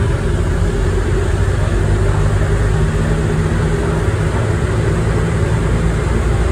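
Airport people-mover train running at speed through a tunnel, heard from inside the car: a steady rumble with a low hum.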